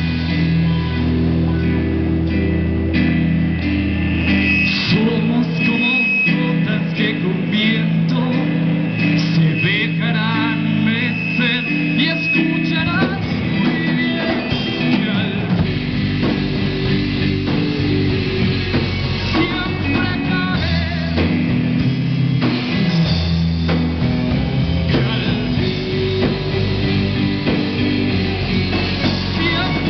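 Live rock band playing amplified rock music: electric guitars, keyboard and drum kit, with a voice singing along.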